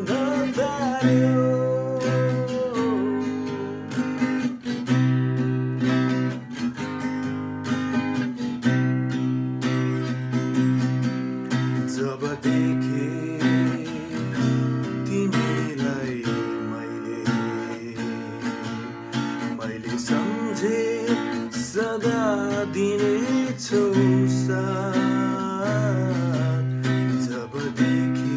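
Steel-string acoustic guitar playing a song, chords picked and strummed.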